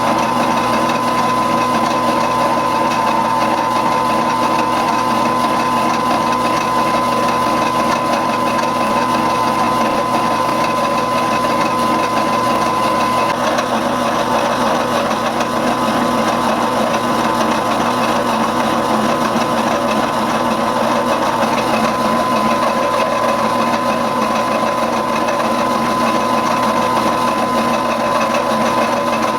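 Milling machine driving a slitting saw through half-inch steel bar in a steady cut, with a continuous high-pitched whine over the grinding of the teeth in the metal.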